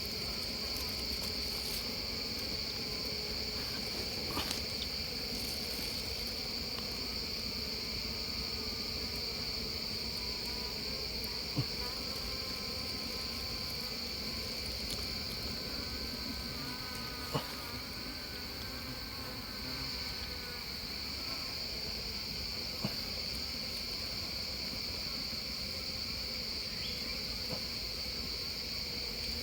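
Steady, unbroken high-pitched drone of insects, with a few faint knocks and clicks.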